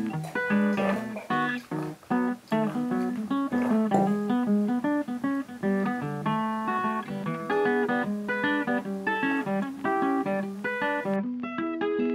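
Background music: a lively plucked acoustic guitar tune with quick, evenly paced notes and strummed chords.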